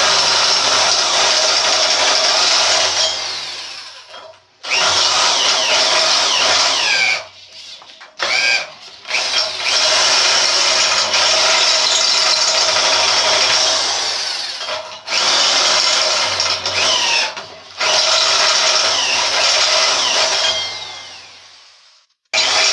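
Power drill with a step bit enlarging mounting holes, run in about six bursts of one to five seconds with short pauses between, several trailing off as the drill spins down. A squealing pitch from the bit cutting comes through in places.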